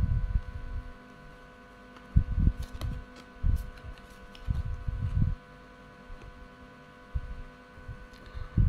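A steady faint electrical hum with several low, muffled bumps at irregular intervals.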